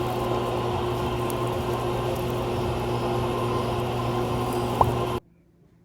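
Steady background noise with a constant mechanical hum, broken by a single click near the end and then cut off abruptly.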